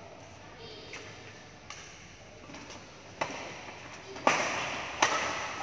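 Badminton rackets striking a shuttlecock back and forth in a doubles rally, a series of sharp cracks, the last two loudest near the end.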